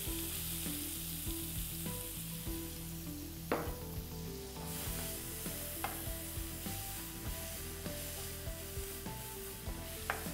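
Minced onion sizzling as it goes into a hot frying pan and is stirred with a wooden spoon. The spoon knocks sharply against the pan a few times.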